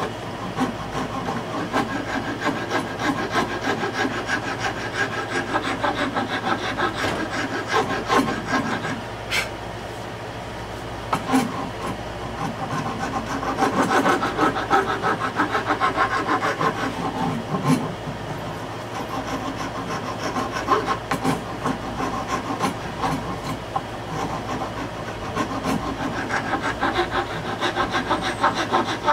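Steel hand file rasping along the edge of an oak board in rapid back-and-forth strokes, shaping the wood, with a brief lull about ten seconds in.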